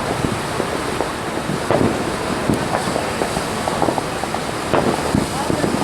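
Steady rushing wind noise on the microphone, with a few faint, scattered knocks, a little louder about two seconds in and near the end.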